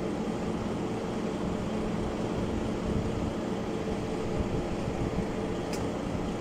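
A large engine running steadily with a constant hum, most likely the travel hoist or lorry working the boat lift. A faint short click comes near the end.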